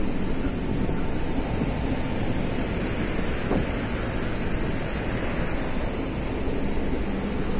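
Car ferry under way at sea: a steady rumble from its engines mixed with the rush of water from the hull and wake and wind, heard from the open deck.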